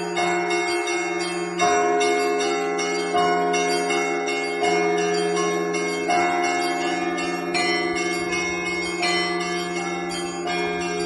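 Russian Orthodox church bells played by a single bell-ringer in a continuous peal. A heavier bell accents a stroke about every one and a half seconds over faster patterns on the smaller bells, and all of them ring on and overlap.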